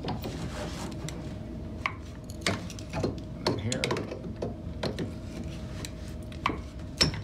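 Manual PEX crimping tool being fitted and clamped over a crimp ring on a shower-valve fitting: scattered metallic clicks and knocks of the steel jaws against the fitting, over a faint steady hum.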